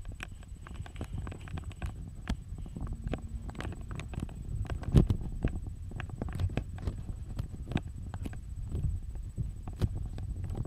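Bubbling sound effect over a scene transition: a continuous low rumble dotted with many irregular pops.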